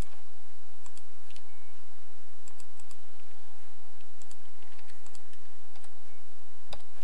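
Computer keyboard keys clicking in short scattered runs as a word is typed, with one sharper click near the end.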